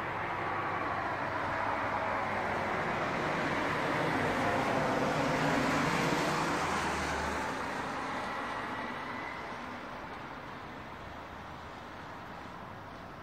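A road vehicle passing: a broad rush of traffic noise that swells to a peak around the middle and then fades away.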